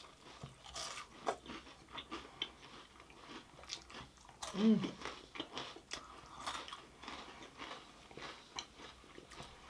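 Close-up eating sounds: crisp jalebi being bitten and chewed, with many small crunches and mouth clicks. A short hummed "mm" comes about halfway through.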